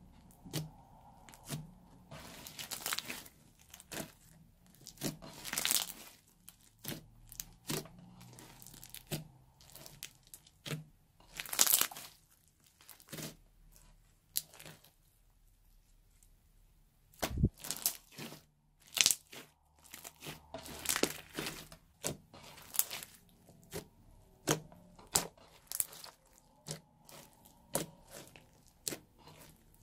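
Floam slime, clear slime packed with tiny polystyrene foam beads, being pressed and poked by fingers: irregular crunching and crackling of the beads, with a quieter pause about halfway through.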